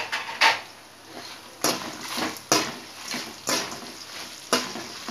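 Steel ladle scraping and stirring whole spices and chillies around an aluminium kadai, about one stroke a second, as the dry masala roasts in a little oil.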